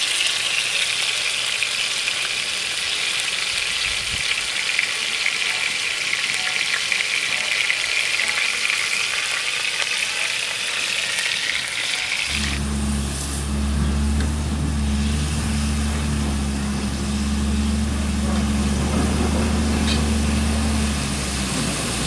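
Pork neck pieces sizzling in butter on a hot metal griddle pan, a dense steady frying hiss. About twelve seconds in, the sizzle drops away abruptly and a steady low motor hum takes over until near the end.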